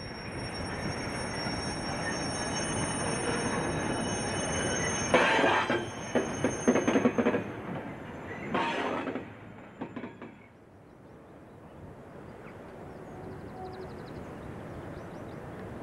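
Class 60 diesel locomotive and hopper wagons: a steady rumble that builds, broken about five seconds in by a couple of seconds of loud metallic clanking and squealing, and again briefly near nine seconds. It then drops to a quieter, more distant rumble.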